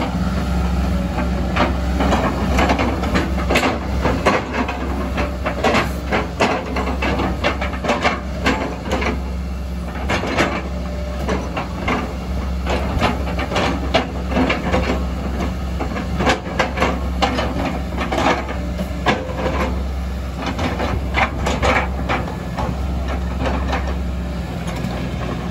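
Kobelco SK140 excavator's diesel engine running with a steady low hum while the boom and arm are worked. Frequent irregular clattering knocks sound over it.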